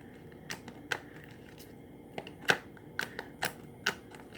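Blue slime giving scattered sharp clicks and pops, about eight irregular ones with the loudest about halfway through, as it is handled and pressed into a small container.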